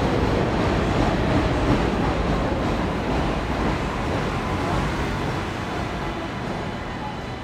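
Elevated 7 subway train running along the steel el structure overhead, a dense rumble that slowly dies away over the last few seconds as the train moves off.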